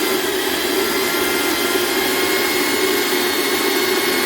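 The Prestige Atlas Deluxe mixer grinder's 750 W motor runs steadily at speed, a loud whirring hum with a high whine above it.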